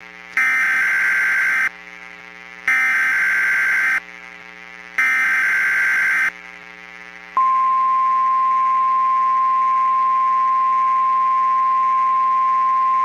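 Emergency Alert System header: three short bursts of screechy digital SAME data, each a little over a second long, followed about seven seconds in by the NOAA Weather Radio 1050 Hz warning alarm, a single steady high tone, over a faint steady hum. The alert heads a tornado emergency warning broadcast.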